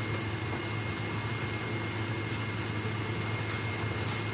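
Kitchen range hood fan running steadily: a constant low hum with a thin high whine over it. A few faint light ticks come near the end.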